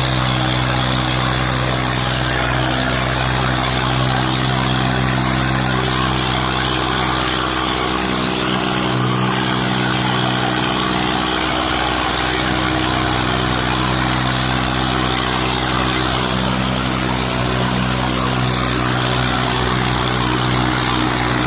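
Tractor diesel engine running steadily under load while pulling a harrow, its note holding even and dipping slightly about halfway through.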